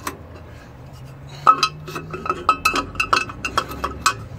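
Metal parts clinking on a lathe face plate: steel hex nuts on the clamping studs and an aluminium block knocking against them as the block is set in place and the nuts are worked. A quick run of sharp, ringing clinks starts about a second and a half in.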